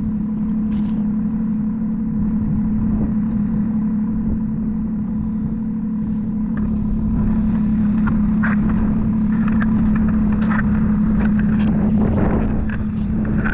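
A small vehicle's engine running at a steady speed with an even hum while it tows an ice-fishing sled across the lake ice on a hitch arm. Scattered knocks and rattles come in over the second half.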